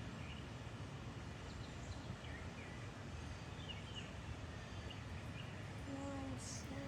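Quiet outdoor background noise with faint, scattered bird chirps, and a brief faint voice near the end.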